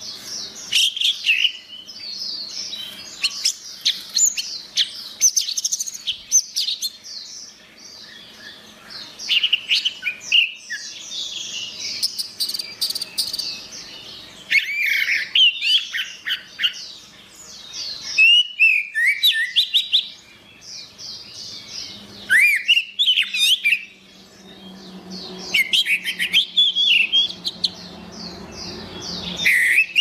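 Orange-headed thrush singing: a long run of rapid, varied whistled and chattering phrases, broken every few seconds by short pauses.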